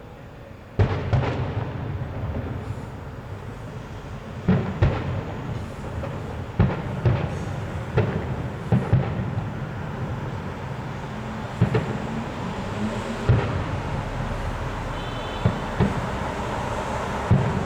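Fireworks display: aerial shells bursting in a run of sharp bangs and booms over a continuous crackling rumble, starting suddenly about a second in.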